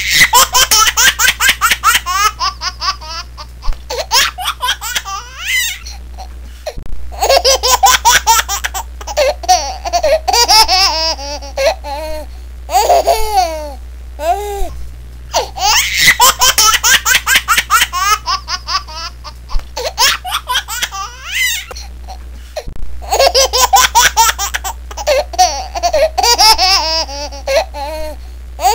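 Laughter in fast runs of high-pitched giggles, a recording looped so that the same stretch of about seven and a half seconds repeats over and over, over a steady low hum.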